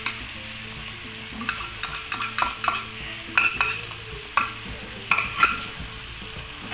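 Macaroni and a freshly poured egg mixture sizzling steadily in a Teflon frying pan. From about a second and a half in, a spatula scrapes and taps against the pan in quick, irregular strokes as the mixture is stirred.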